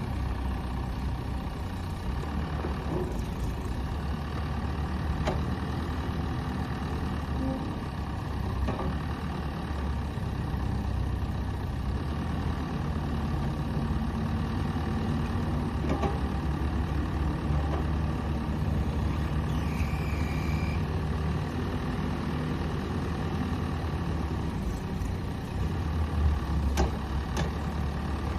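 Bobcat 435 mini excavator's Kubota V2403 four-cylinder diesel engine running steadily, with a few sharp clicks and knocks over it.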